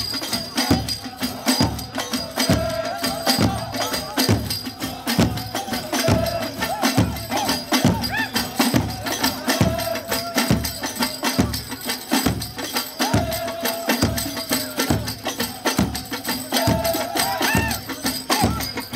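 Ahwach music: large hand-beaten frame drums keeping a steady pulse of about two strokes a second, under a chorus of men singing.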